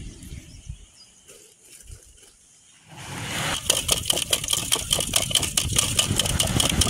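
Boiled potatoes knocking and rattling in a metal pot as the pot is shaken, a rapid, loud clatter that starts about three seconds in after a quieter stretch.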